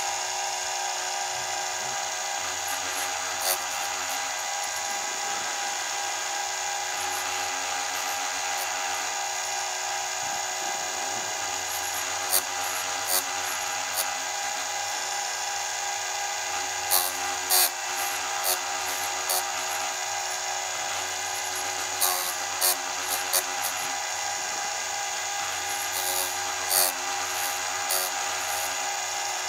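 Electric chainsaw chain sharpener running with a steady motor whine. Its abrasive wheel makes short, sharp grinding rasps several times, mostly in the second half, as it is brought down onto the chain's rakers (depth gauges) to lower them.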